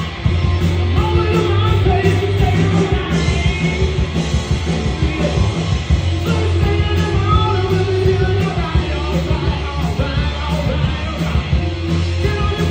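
Rock band playing, with a distorted electric guitar solo bending notes over bass and drums.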